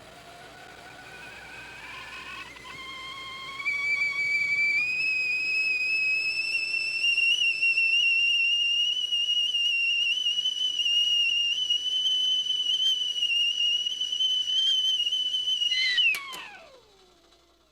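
Whistling kettle coming to the boil: the whistle rises in pitch and gets louder over the first four seconds, then holds a steady shrill tone. About sixteen seconds in, it swoops down in pitch and dies away.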